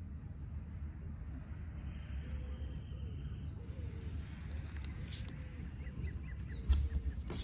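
Tarot cards being handled: a few soft rustles and a sharper thump near the end, over a steady low background hum with faint bird chirps.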